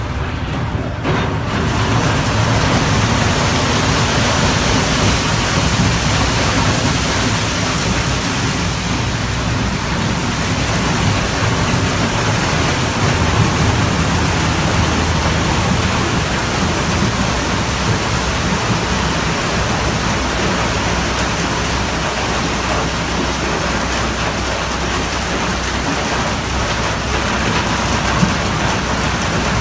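Crushed ice pouring steadily through a delivery chute into a fishing boat's ice hold: a continuous rushing hiss like heavy rain over a low machine hum. The flow sets in about two seconds in.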